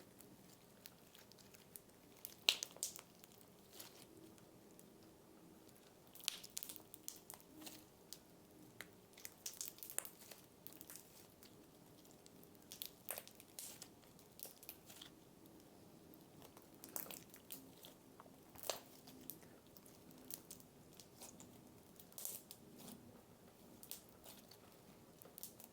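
Cereal slime being slowly pulled and squeezed by hand, giving faint, irregular crackles and small pops.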